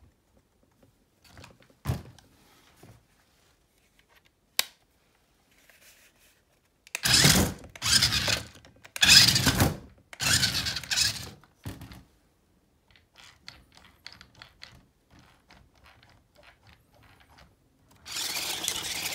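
Dual electric motors and gearbox of a 1/16 4WD toy RC rock crawler whirring in four short bursts of about a second each as it is driven on a hard floor, with a few clicks and taps of handling before them. A steadier, louder noise starts near the end as the car is run in shallow water.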